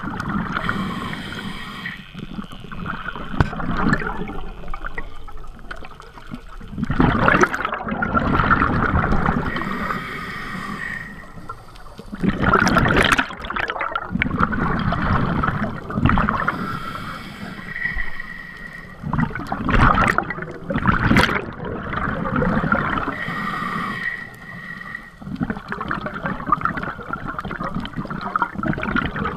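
Scuba diver breathing through a regulator, heard underwater through a GoPro's waterproof housing: a steady hiss of inhaled air, broken several times by a loud rush of exhaled bubbles.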